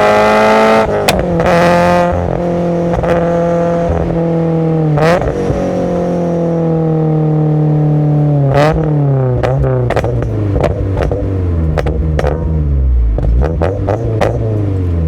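A Subaru BRZ's FA20 flat-four, breathing through SARD individual throttle bodies, revs up to about a second in and then drops off. Its engine speed falls in steps through the rest, with a run of sharp cracks in the second half as the car slows.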